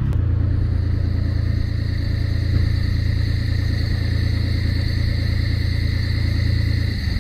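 Boat engine running steadily, heard from on board: an even low hum with a faint steady whine above it.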